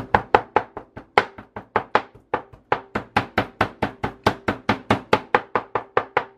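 Chicken breast fillets being pounded flat with a metal meat mallet on a wooden cutting board: a steady run of quick, even knocks, about four to five strikes a second.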